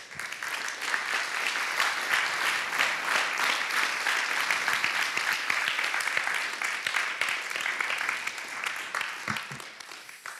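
Audience applause: many hands clapping, starting at once, holding steady, then fading out near the end.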